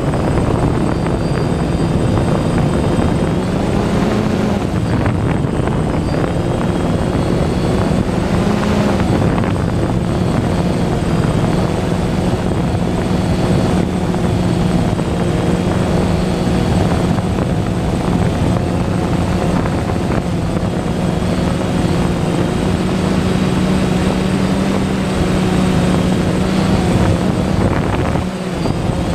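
DJI Phantom quadcopter's motors and propellers running steadily in flight, heard close up from the drone's own onboard camera, with rushing air noise. The pitch rises briefly a couple of times, about 4 and 9 seconds in.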